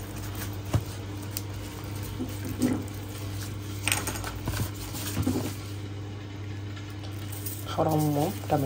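Gloved hands rubbing wet marinade into raw fish pieces in a tray: soft, wet handling noises and a few light knocks over a steady low hum. A voice speaks briefly near the end.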